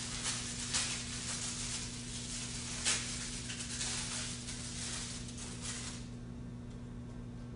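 Crinkling and rustling of a wrapper being handled and opened, irregular with small sharp crackles, stopping about six seconds in. A steady low electrical hum runs underneath.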